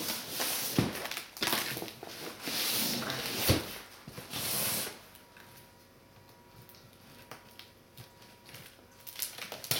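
Rustling and crinkling of a heavily taped package being pulled open by hand, with two sharp knocks in the first few seconds. It goes quieter about halfway through, then the rustling starts again near the end.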